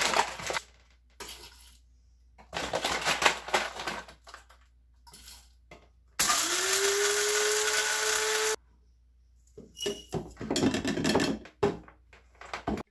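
Electric blade coffee grinder running for about two and a half seconds in the middle, its motor spinning up quickly to a steady whine and then cutting off. Before and after it, rattling and clattering as beans are poured in and the grinder's lid and parts are handled.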